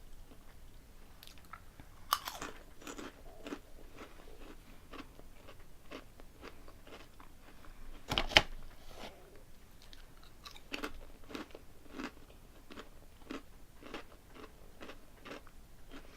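A person biting into and chewing crunchy potato chips: a run of crisp crunches, with two loud bites, about two seconds in and just after eight seconds.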